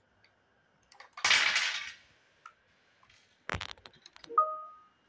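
Plastic toy parts being handled on a glass tabletop: a loud scrape lasting under a second about a second in, a quick run of sharp clicks and knocks past the middle, then a short squeak that rises and holds one pitch.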